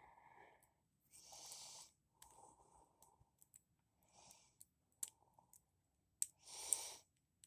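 Faint breathing and a few small, sharp clicks from lock picks working in an SPP American 40 mm brass padlock.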